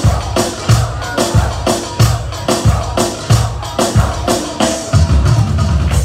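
Live çiftetel dance music played loud: a heavy drum beat, about three hits every two seconds, under a clarinet melody.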